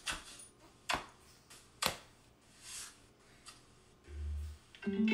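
Sharp clicks about once a second, then a short low thud and a brief pitched note near the end, playing quietly from a TikTok video on a phone.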